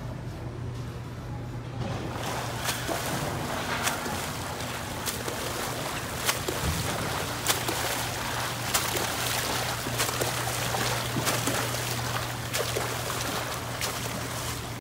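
A swimmer's butterfly stroke splashing in pool water, with a sharp splash about every 1.2 seconds as the arms strike the surface. A steady low hum runs underneath.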